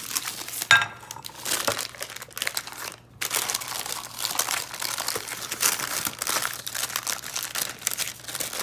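Parchment paper crinkling and rustling as it is handled over rolled-out pie dough, with a sharp crackle a little under a second in and a short lull about three seconds in.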